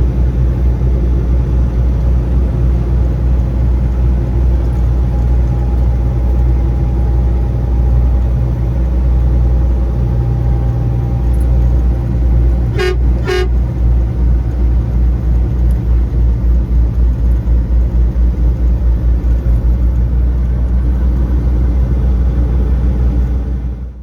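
Truck driving at highway speed, a loud steady low engine and road rumble, with two short truck horn toots about half a second apart midway through.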